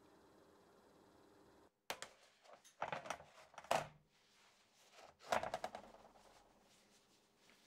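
A faint steady oven hum, then a metal baking sheet of cookies is set down on a wooden table. It makes a series of sharp clatters and scrapes in two clusters, with the loudest knocks a little before and after the middle.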